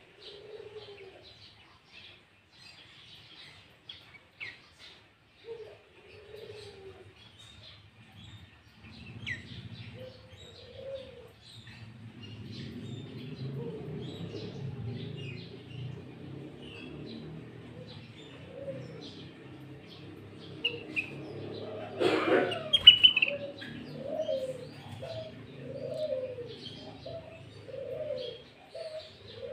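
Small birds chirping in short high notes throughout, and a dove cooing in a repeated series of low notes through the last third. A low rumble runs underneath through the middle, and a brief loud burst comes about two-thirds in.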